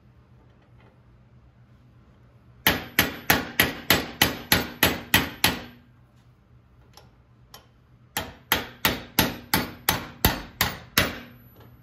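Hammer striking a steel socket adapter set in a pressed-in handlebar clamp bushing, driving the bushing out of a 1968 Triumph T120R's top triple clamp held in a bench vise. Two quick runs of about ten metal-on-metal blows each, about four a second, with a faint ring, the first starting a few seconds in and the second after a short pause.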